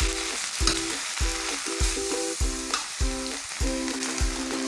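Turi flowers, shallots and chilies sizzling in oil as they are stir-fried in a wok. Background music with a steady beat plays over it.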